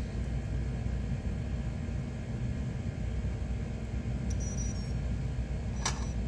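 Steady low background rumble, with a sharp click near the end as a small battery is pushed into a tiny whoop drone.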